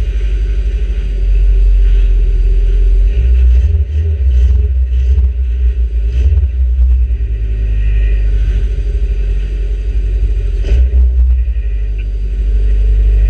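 Micro banger race car's engine running hard, heard from inside the stripped-out cabin over a heavy low rumble. A handful of knocks and bangs come about four to seven seconds in, and one more near the end.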